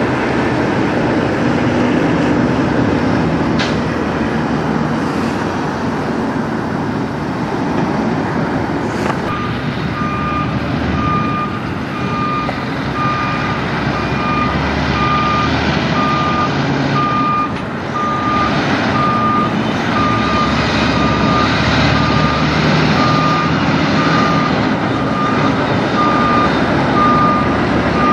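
Peterbilt semi truck's diesel engine running as the loaded rig pulls away. From about nine seconds in, a backup alarm beeps steadily, a little more than once a second.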